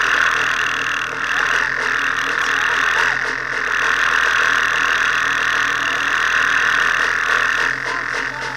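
Hyundai rally car's engine idling, heard from inside the stripped cabin, with a steady high hiss over it.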